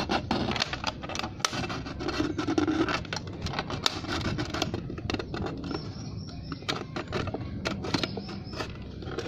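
Thin plastic mineral-water bottle crinkling and scraping, with many irregular sharp clicks, as it is handled and twisted apart along a cut round its middle.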